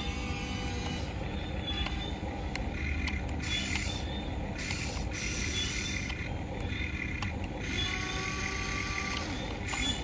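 Huina 1594 RC excavator's electric arm motors whirring as the boom, stick and bucket move, the whine starting and stopping several times in short stretches.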